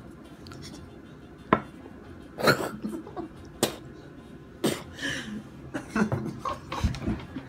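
A young man coughing and gagging in about six short, sharp fits, mixed with a little laughter, over a mouthful of capelin caviar. A sharp click comes about a second and a half in.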